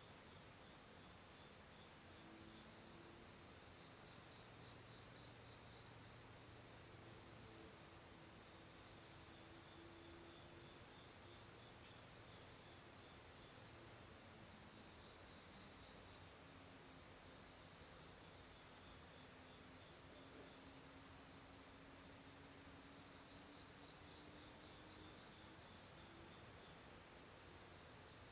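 Singing insects, crickets in kind: one steady, unbroken high trill, and a second, lower pulsing song that swells and fades in phrases every couple of seconds. Faint overall.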